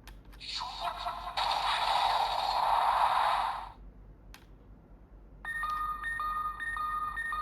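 Electronic sound effects from a Bandai DX Ultraman Max Hyper Key toy played through its small speaker: a noisy whooshing effect lasting about three and a half seconds, a single click, then a looping pattern of alternating two-note electronic beeps starting about two-thirds of the way through.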